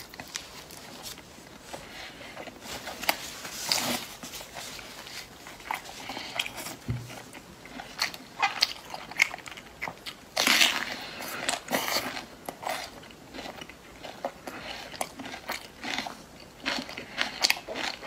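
A person biting into and chewing spiced pork belly: a run of short crunchy, crackly bites and chewing, with a louder, busier stretch of crunching about ten seconds in.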